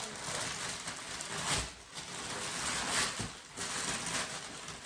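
Gift-wrapping paper rustling and tearing as a present is unwrapped, with a few short, louder rips.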